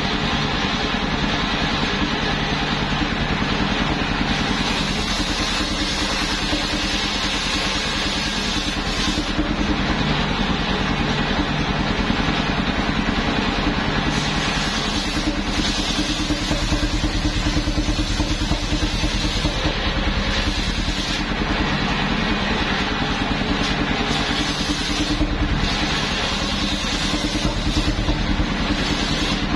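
Homemade engine-driven circular sawmill running steadily while its large blade rips planks lengthwise, the cutting sound swelling and dropping away about five times as boards pass through.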